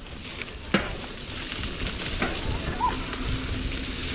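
Mountain bike rolling down a wet, muddy trail: tyre noise and rattling, with wind rumbling on the camera's microphone, and one sharp knock about a second in.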